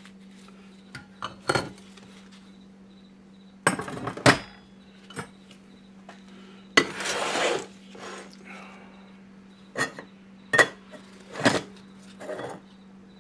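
Metal parts from a 4L80E automatic transmission clinking and clattering as they are handled and set down: a series of sharp knocks, with a longer scrape about seven seconds in.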